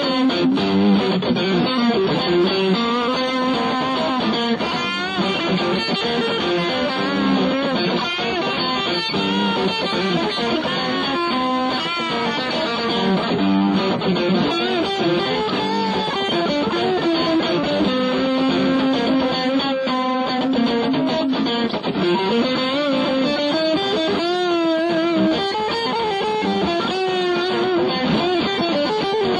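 31-tone equal-tempered microtonal electric guitar playing bluesy lead licks, its notes bending and wavering in places.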